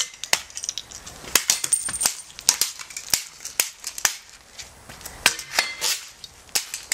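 A coffee maker being beaten apart: a rapid, irregular string of sharp cracks and knocks as a tool strikes and breaks its plastic body, with a short lull about four seconds in.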